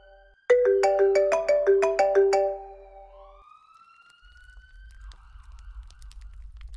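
Phone alarm ringtone going off, a quick repeating run of chiming notes that starts again about half a second in and stops after about two seconds. A faint rising tone follows, then a low hum with faint clicks.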